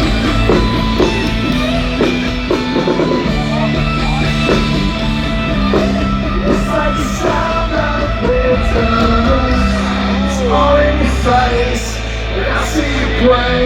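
Live rock band playing: electric guitar and steady bass notes that change every second or two, with a melodic line bending in pitch over them, played at loud concert volume.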